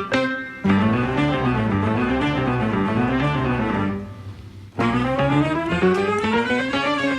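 Background music with plucked and bowed string-like instruments in a rising and falling melody; it drops away briefly a little past the middle, then picks up again.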